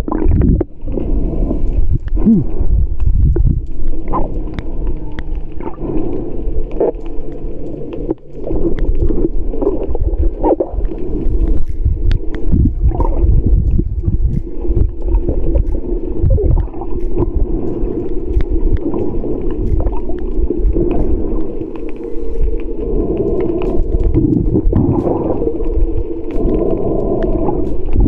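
Muffled underwater sound from a camera held under the sea surface: a heavy low rumble of moving water with bubbling and many short knocks against the camera housing.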